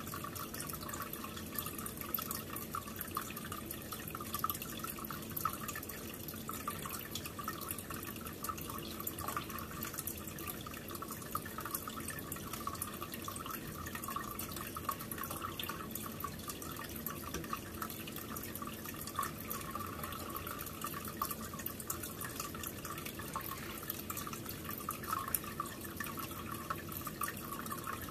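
Aquarium filter running: a steady trickling and splashing of water, dotted with many small drips.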